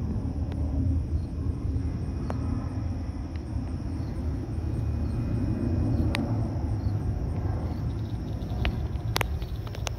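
A steady low outdoor rumble with a faint, steady high-pitched hum above it and a few sharp clicks.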